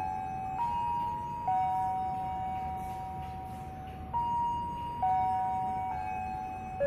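Railway station public-address chime playing a slow melody of bell-like notes. Each note starts sharply and rings on under the next, about one a second, stepping up and down.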